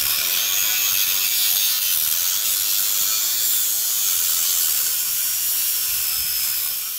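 Electric angle grinder with a metal cut-off disc running steadily while cutting through a steel tower leg, a loud grinding hiss with a high whine that wavers slightly in pitch.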